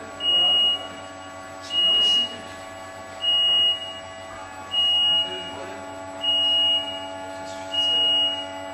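Motion warning beeper of a tracked spider aerial work platform, sounding a single high-pitched beep about every one and a half seconds, six times, while the boom moves. A steady hum runs underneath.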